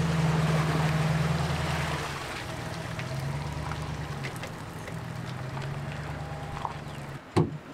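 An engine idling steadily, louder for the first two seconds and then quieter, with a single sharp knock near the end.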